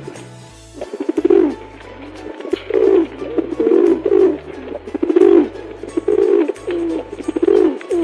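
Feral rock pigeons cooing, a steady run of short coos about two a second, over background music with a low bass line.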